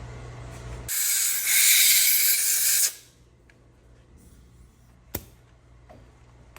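A hissing blast of pressurised spray, about two seconds long, starting and stopping sharply as a transmission part is cleaned out. A single sharp click comes near the end.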